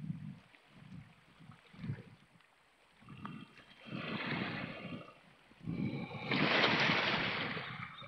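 Small sea waves washing in over shoreline rocks, each a rush of water that swells and ebbs. A lull comes about two seconds in, then a wash builds, and a larger, louder surge rises about six seconds in and fades near the end.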